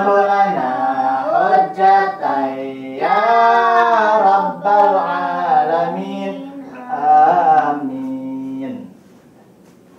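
A man reciting the Quran in a melodic chanted style, with long held notes that waver and glide in pitch. The recitation stops about nine seconds in, leaving faint room noise.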